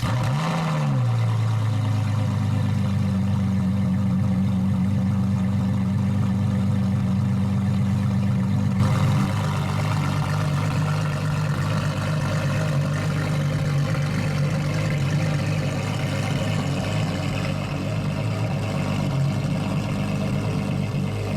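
Ferrari LaFerrari's V12 engine just after starting: a brief flare of revs in the first second, then a steady idle.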